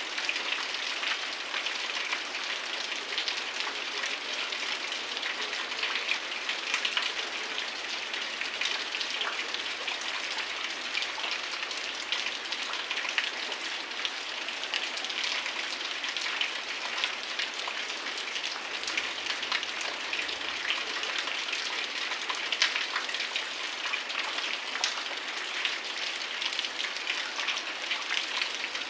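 Heavy rain falling steadily, with many sharp close drop hits spattering over a dense hiss.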